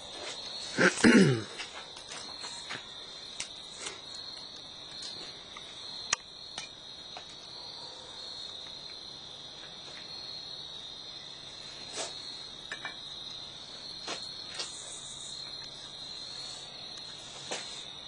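Crickets chirring, a steady high trill. About a second in there is a short, loud sound that falls in pitch, and a few sharp clicks and taps are scattered through the rest.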